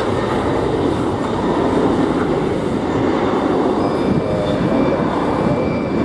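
Jet engines of a taxiing airliner giving a steady rumbling roar, with a faint thin whine coming in about four seconds in.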